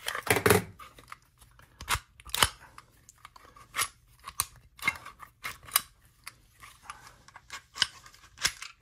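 Sharp, irregular clicks and clacks of a Hi-Point Gen 2 .45 ACP pistol being handled as its magazine release is worked and the magazine is pried loose, about a dozen clicks with pauses between, the loudest near the start and about two seconds in.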